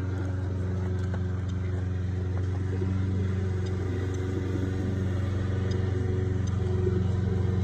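Steady low hum of a running motor, like an engine at idle, holding one unchanging pitch with even overtones above it.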